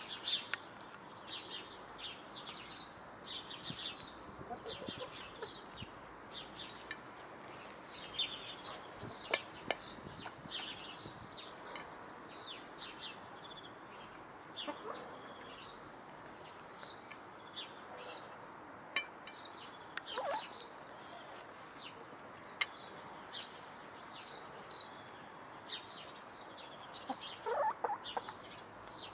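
Brown laying hens clucking quietly as they feed, with a few sharp taps of beaks striking a metal bowl. Frequent short high chirps run throughout.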